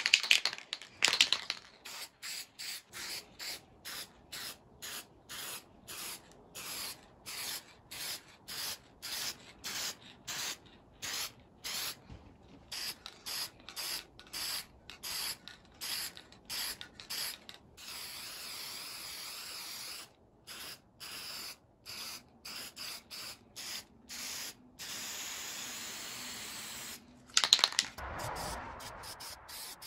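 Aerosol spray paint can hissing as black paint goes onto bare carved wood, first in many short quick bursts, about two a second, then in longer continuous passes later on. Brief louder handling noises right at the start and shortly before the end.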